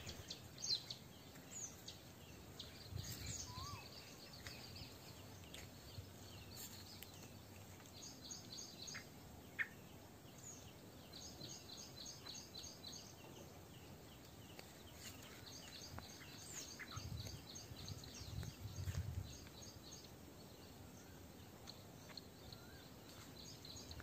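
Faint forest birdsong: a bird repeating quick high chirps in runs of several notes, several times over, with scattered single calls from other birds and a few low rumbles.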